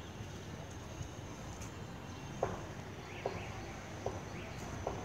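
Footsteps on brick paving: a step about every 0.8 seconds, starting about halfway through, over a steady low background hum.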